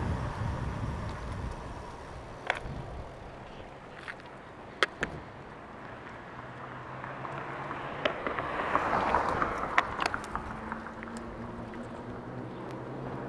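Bicycle ride noise: wind rumbling on the microphone over the rolling of the bike. It is strongest at the start and eases off, with several sharp clicks, a swell of noise about eight to ten seconds in, and a low steady hum near the end.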